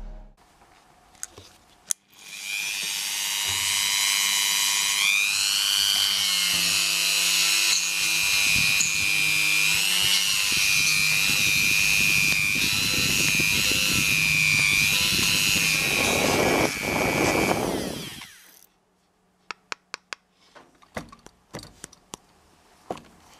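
Handheld Dremel-type rotary tool switched on about two seconds in, running at high speed with a high whine that wavers as the bit routes out a pocket in a wooden lure body. It switches off about eighteen seconds in, followed by a few light taps.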